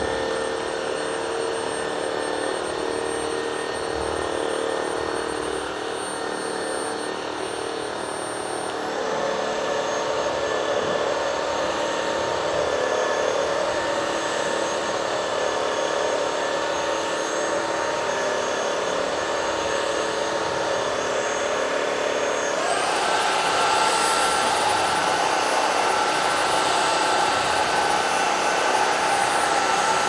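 Xiaomi JIMMY JV63 cordless stick vacuum's brushless motor running steadily with a whine. It is switched up through its suction levels: the pitch and loudness step up about nine seconds in, from low to middle power, and again near twenty-two seconds, to high power, where it is loudest.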